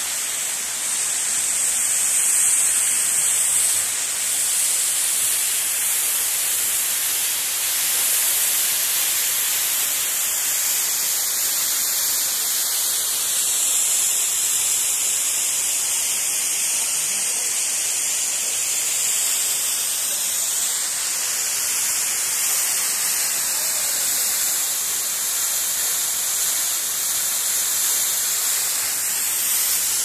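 Tall waterfall's falling water making a steady, hissing rush that never lets up.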